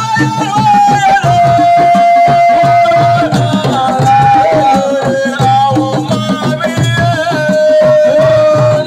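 Assiko band music: hand drums beating a dense rhythm under a melody of long held notes that slide between pitches.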